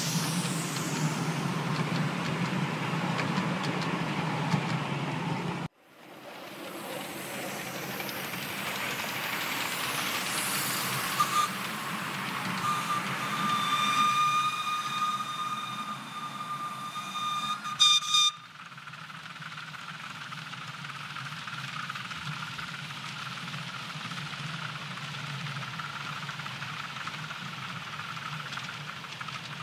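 Miniature live steam locomotives hauling trains on a garden railway: the steady running noise of the train on the track with steam hiss. About halfway through, a steam whistle gives one long, steady blast of around five seconds.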